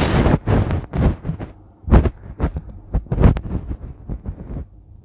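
Irregular close knocks and thumps of hands working on the desk right by the microphone, loud, with several sharp knocks about a second apart.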